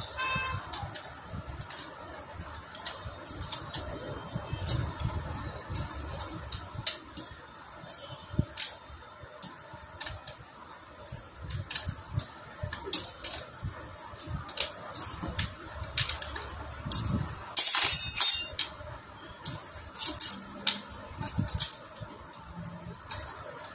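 Steel hand tools clicking and clinking on a Honda Dio scooter's cylinder head as the head nuts are worked with a spanner: scattered short metallic taps, with a louder rattle lasting about a second near 18 seconds in.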